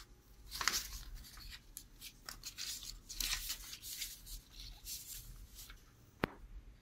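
A sheet of 85 g sublimation transfer paper rustling and crinkling in uneven bursts as it is handled and lifted, with one sharp click a little after six seconds in.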